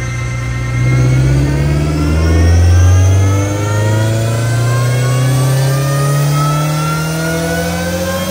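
Turbocharged BMW B48 2.0-litre four-cylinder making a full-throttle pull on a chassis dyno, the engine note climbing steadily in pitch as the revs rise through the range.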